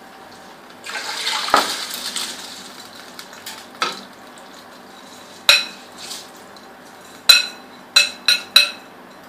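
Soaked rice poured into a pot of water with a brief splashing rush about a second in, followed by sharp metallic clinks of a spoon against the metal cooking pot, about six in all, the last few in quick succession.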